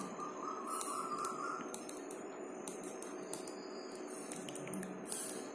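Pen writing on paper: faint scratching with small irregular ticks as the letters are formed.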